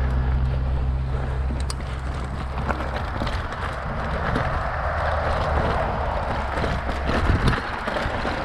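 Specialized Rockhopper hardtail mountain bike riding a dirt trail: tyre noise with scattered clicks and rattles from the bike over the ground, and wind rumbling on the microphone. The low wind rumble eases about three seconds in and a louder hiss follows.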